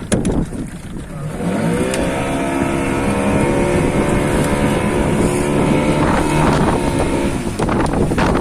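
Small fishing boat's engine revving up about a second in, then holding a steady higher speed for several seconds before easing off near the end.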